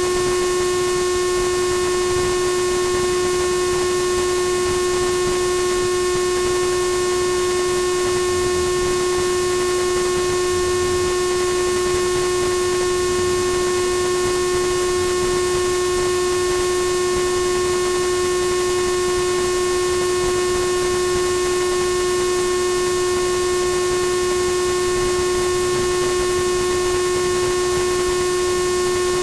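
A steady, unbroken droning tone with several fainter higher tones above it, unchanging in pitch and loudness.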